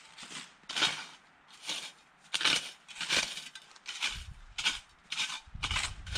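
Snow shovels digging into packed snow: repeated crunching scrapes, one or two a second.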